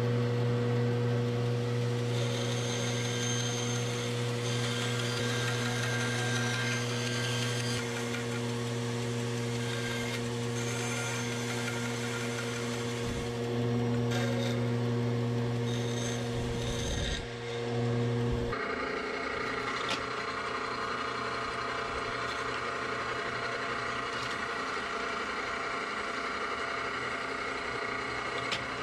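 Bandsaw motor running steadily while the blade cuts a block of dyed, stabilized curly birch for the knife's handle scales. About two-thirds of the way in, the sound switches abruptly to a drill press running and drilling, higher-pitched than the saw.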